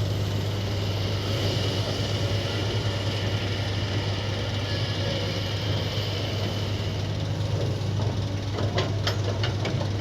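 Kobelco hydraulic excavator's diesel engine running steadily with a low hum, and a few sharp clicks or knocks about nine seconds in.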